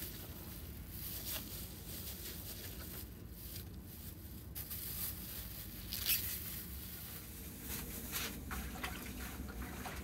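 Wet squelching and dripping as a hand squeezes and lifts shredded pickled cabbage out of its brine in a plastic bucket, with the loudest squelch about six seconds in.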